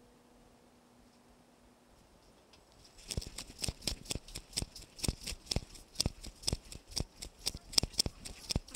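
A faint steady low hum inside the elevator car, then, from about three seconds in, footsteps clicking on a hard hallway floor at about two steps a second.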